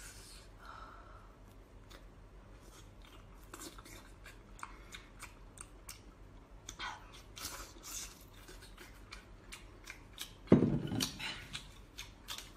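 Close-up eating sounds as a large raw oyster is worked from its shell: a run of small clicks and wet mouth noises. About ten and a half seconds in comes a much louder burst of mouth and shell noise as the shell is raised to the mouth.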